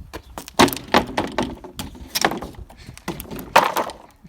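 Thin wooden panels knocking and clattering against each other and against wood, a run of knocks with four loud ones.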